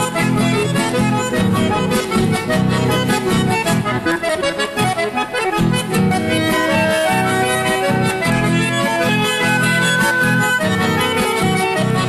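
Instrumental chamamé music: an accordion plays held, reedy melody notes over steadily strummed guitars.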